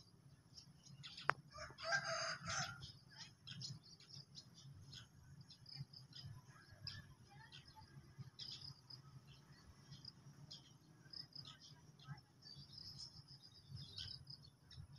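A rooster crows once, about two seconds in, over frequent short chirps of small birds and a faint low steady rumble.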